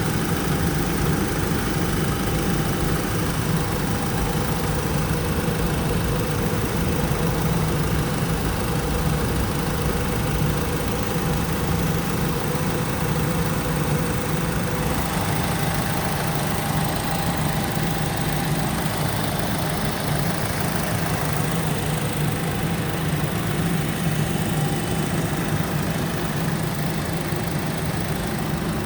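Car engine idling steadily while its cooling system is burped of trapped air after a coolant flush.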